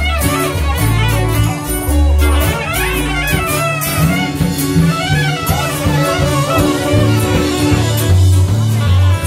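A live band playing an upbeat instrumental passage. A reed horn winds through a melody over strummed guitar, a bass line and drums.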